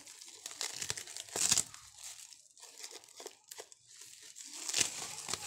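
Clear plastic wrap crinkling and rustling as it is handled and pulled off a slate piece by hand, in irregular crackles, with louder bursts about a second and a half in and again near the end.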